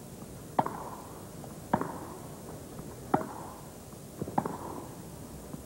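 Tennis rackets striking the ball in a baseline-to-net rally, four sharp hits about a second and a half apart.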